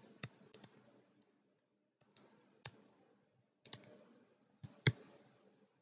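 Scattered light clicks and taps of a stylus on a tablet screen as handwriting is added, about eight in all at uneven intervals, the loudest just before the end.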